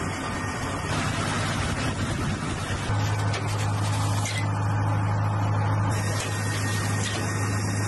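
Steady running noise of a helicopter's turbine engines, with a low steady hum that comes in about three seconds in.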